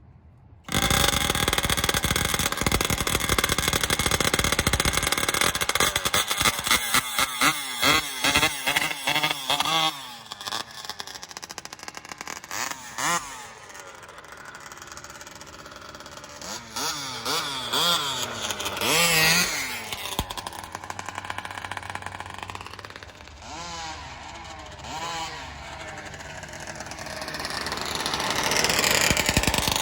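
Small two-stroke gas engine of a large-scale RC car running at high revs, then blipped in a quick series of revs. It then drops to a lower speed, with several more swells of revs and a rise near the end.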